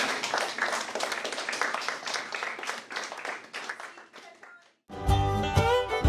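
Audience applauding, which dies away about four and a half seconds in. After a brief silence, music with plucked strings starts abruptly near the end.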